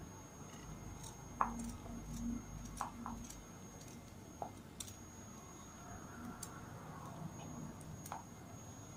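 Serrated knife cutting small pieces off a bitter gourd held in the hand, the pieces dropping into a plastic bowl: scattered short, crisp clicks and taps, roughly one every second or so.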